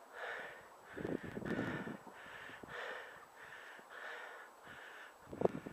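A runner breathing hard and fast close to the microphone, about one and a half breaths a second, out of breath from running. A gust of wind rumbles on the microphone about a second in.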